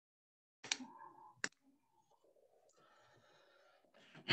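A call microphone cutting in from dead silence: two sharp clicks about a second in, faint room hiss, then a short breathy burst near the end.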